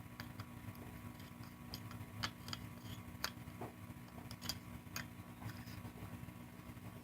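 Scattered light metal clicks and small scrapes from a Para 1911 pistol's stainless steel slide being fitted onto its aluminum frame and worked back to line up the slide stop hole.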